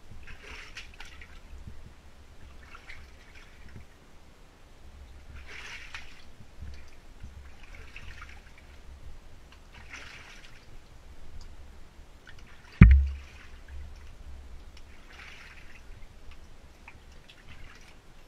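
Shallow water sloshing and splashing as someone moves through a narrow flooded tunnel, in short bursts every two to three seconds. A single heavy thump about thirteen seconds in.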